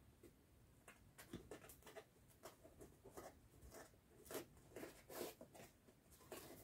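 Near silence, with faint scattered rustles and small clicks as the helmet is handled and turned in the hands.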